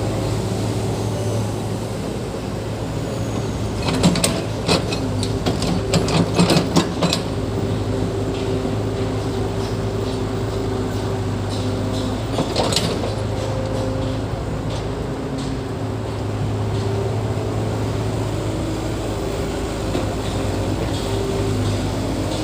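Diesel engine of heavy earthmoving equipment running steadily, with a flurry of metallic clanks about four to seven seconds in and another clank near thirteen seconds.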